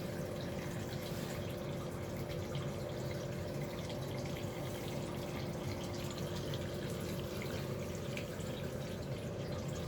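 Water running steadily out of a water heater tank's 3/4-inch full-port ball drain valve into a bucket during a sediment flush, an even splashing flow with a faint steady hum beneath it.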